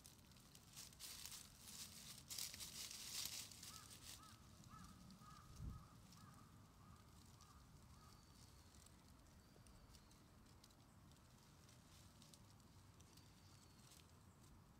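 Faint rustling, like dry grass or leaves being stirred, for a few seconds. Then a soft bump and a quick run of small squeaky chirps, with faint high bird-like calls now and then afterwards.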